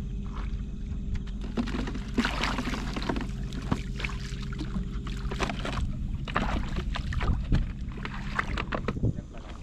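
Shallow seawater splashing and sloshing in irregular bursts as someone wades and works a scoop net through it, over a steady low hum that cuts off near the end.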